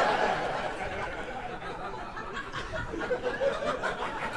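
Audience laughing at a punchline, loudest at first and slowly dying down.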